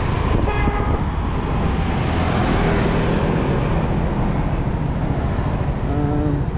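Riding a Yamaha 125 cc scooter: steady low rumble of wind and engine on the handlebar-mounted microphone, with street traffic around it. The noise swells for a moment two to three seconds in.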